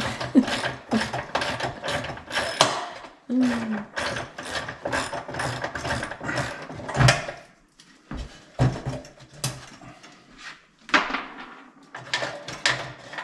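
Ratchet wrench clicking in quick back-and-forth strokes while a nut or bolt is loosened, about three clicks a second. After about seven seconds it thins to a few scattered clicks.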